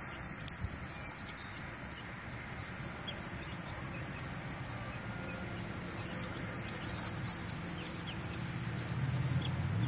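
Steady high-pitched trill of crickets, with scattered faint short peeps from young chicks and a few light clicks early on.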